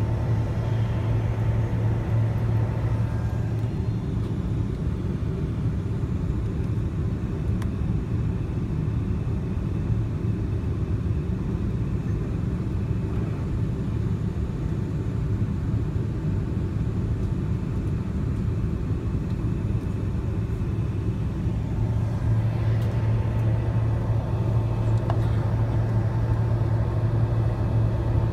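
Boeing 767-300ER taxiing, heard from inside the cabin: a steady low rumble of the engines at taxi power and the rolling airframe. A low hum in it grows stronger for the first few seconds and again for the last several.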